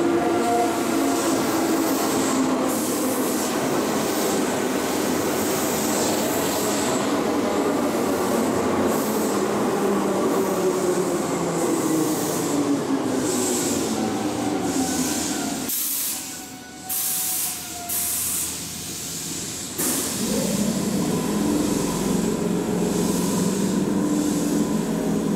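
Keihan electric train running through its braking, its motor whine falling steadily in pitch over about fifteen seconds with a rushing hiss. After a short quieter stretch past the middle, a train pulls away with its motor whine rising in pitch.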